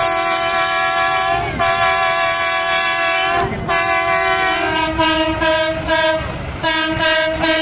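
Vehicle air horn sounding in several long blasts with short gaps between them, a steady chord of tones that steps slightly lower in pitch about five seconds in.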